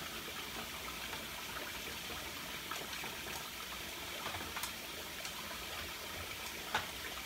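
Kitchen faucet running steadily into a sink while plastic juicer parts are rinsed, with a few light clicks and knocks of the parts, the sharpest near the end.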